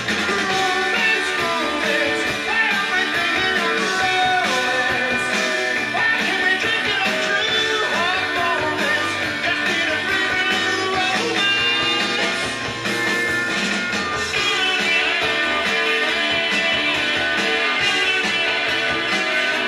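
Rock music with guitar, played from a vinyl record on a Dual 1219 idler-drive turntable.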